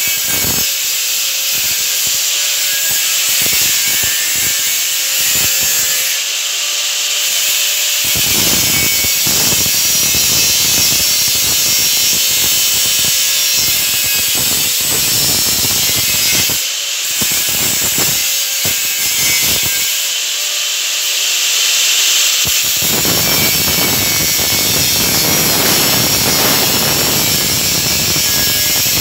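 Electric angle grinder with its disc pressed against metal, a continuous high hiss. The grinding bears down harder from about eight seconds in, eases off briefly twice in the middle, then runs heavy again.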